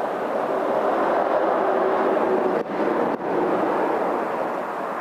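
Steady, loud machine-like rushing noise, broken by two brief dropouts about two and a half and three seconds in.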